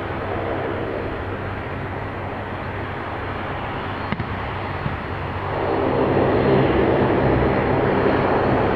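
Airliner engines running with a steady rumble and hum, growing louder about five and a half seconds in.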